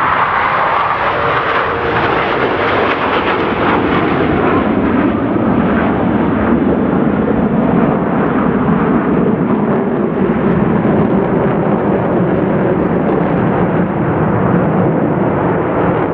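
Jet roar of Blue Angels F/A-18 Super Hornets flying past, loud and continuous. The higher hissing edge fades after about four seconds, leaving a deeper rumble.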